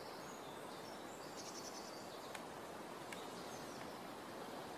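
Faint outdoor ambience: a steady background hiss with a couple of short, high-pitched bird trills and chirps, the clearest about a second in.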